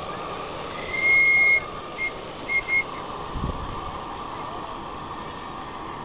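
Small steam whistle on a model steamboat blowing one high-pitched blast of about a second, then three short toots at the same pitch.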